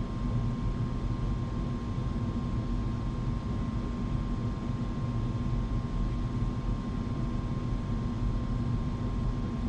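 Furnace running: a steady, even drone with a constant low hum.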